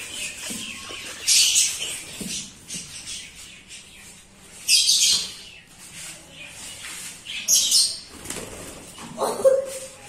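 Partridge (teetar) chick flapping its wings in short, rustling flurries, three or four times a few seconds apart.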